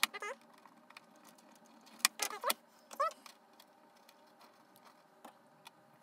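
Small clicks and taps of a hand tool and parts being handled on a plastic RC car body, with a few short squeaky chirps that glide up and down in pitch.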